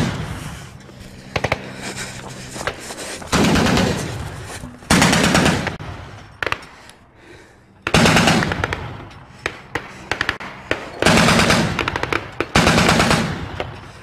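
Heavy machine gun mounted on a pickup truck firing repeated bursts of about a second each, five bursts a few seconds apart, with scattered single cracks between them.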